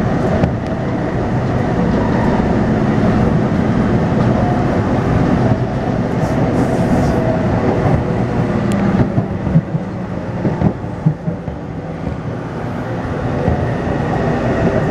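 Taipei Metro C301 train running between stations, heard from inside the car: a steady rumble of wheels on rail under the steady tones of the retrofitted traction inverter. Partway through, the sound drops a little with a few sharp clacks, and near the end a thin high whine comes in.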